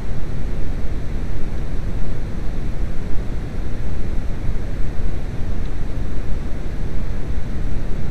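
Steady low rumbling noise with no distinct knocks or tones.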